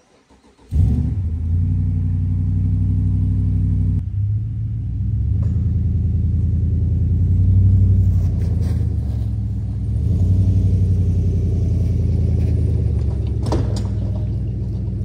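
Jeep Commander engine starting up about a second in, then running and revving as the SUV pulls away towing an off-road trailer.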